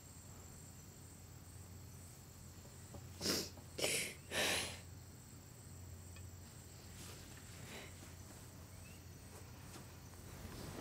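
A young woman crying: three short sobbing breaths a little over three seconds in, over a faint low hum of room tone.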